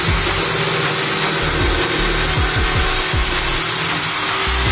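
Corded electric drill running steadily in a bench drill stand, its bit boring into a block of wood.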